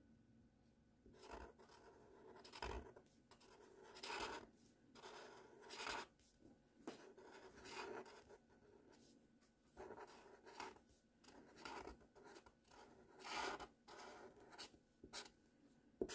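Felt-tip marker scratching faintly across paper in a series of short cursive strokes as a word is written out, with one sharp click near the end.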